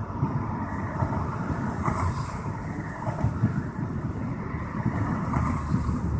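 Wind buffeting the microphone: an irregular low rumble that rises and falls.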